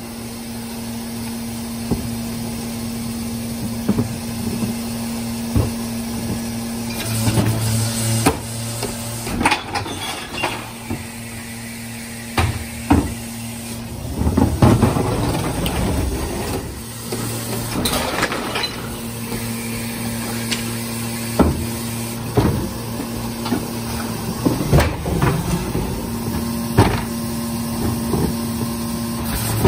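New Way rear-loader recycling truck idling with a steady hum that swells briefly about seven seconds in and again near the end, over repeated knocks and clatter from plastic wheeled carts being rolled and handled.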